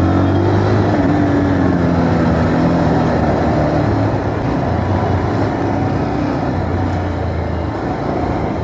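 Bajaj Pulsar 220F's single-cylinder engine running at low road speed, about 25 to 35 km/h, its note rising and falling slightly with the throttle.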